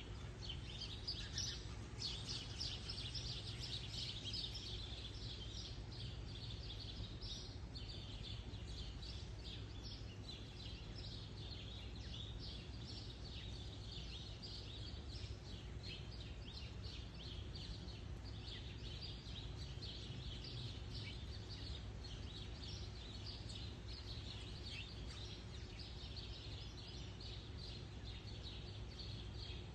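Outdoor chorus of birds chirping, a dense run of quick high chirps that carries on throughout, over a low steady background rumble.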